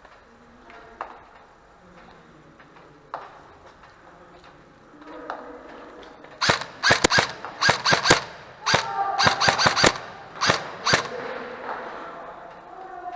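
Airsoft guns firing a quick, irregular string of sharp shots, about fifteen in some four seconds, starting about halfway through. A couple of single clicks come before them.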